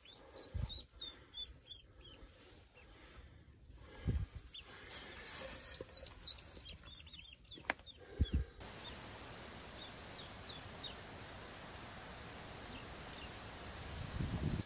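Ducklings peeping: many short, high, falling peeps, with a few dull thumps and rustles from hands in the straw nest. About halfway through the peeps thin to a scattered few over a steady hiss.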